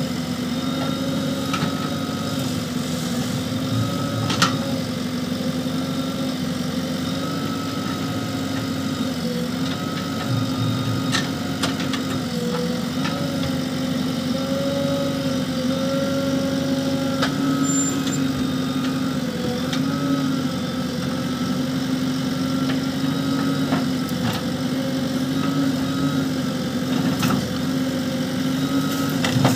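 JCB backhoe loader's diesel engine running steadily, its pitch sagging briefly now and then as the hydraulics take load while the backhoe digs. A few sharp knocks of the bucket against earth and stone cut through it.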